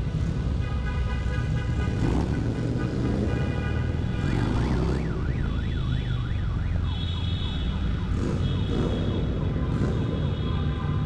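Harley-Davidson motorcycle's V-twin engine running at low speed under a car alarm that cycles through steady tones. About four seconds in the alarm switches to a rapid up-and-down whoop for a few seconds, then goes back to steady tones.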